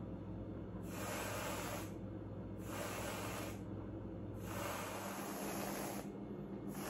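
Aerosol can of whipped cream spraying dollops onto a pie: three hissing sprays of about a second each, with short pauses between.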